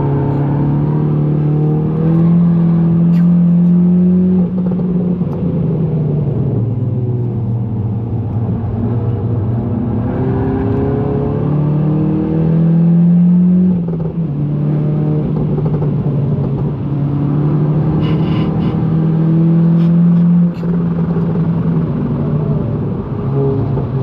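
GTI's engine under hard acceleration, its note climbing in pitch and then falling off sharply three times as the car is driven at pace.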